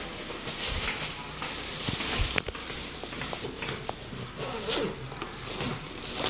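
Rustling handling noise, then a run of small clicks and rattles as the metal knob and latch of a wooden panel door are worked.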